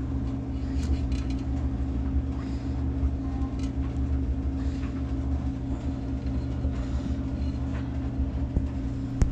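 Samsung front-loading washing machine running with a steady low hum, with a few faint light clicks over it.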